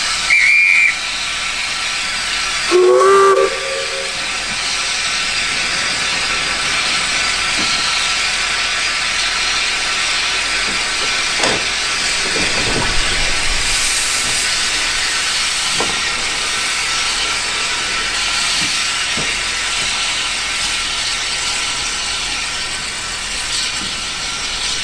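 Saddle-tank steam locomotive pulling a heritage train away: a short shrill whistle right at the start, then a brief steam whistle about three seconds in. After that, steady hissing of steam runs on as the train moves off.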